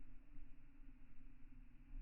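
Faint steady low hum with background rumble; no distinct sound event.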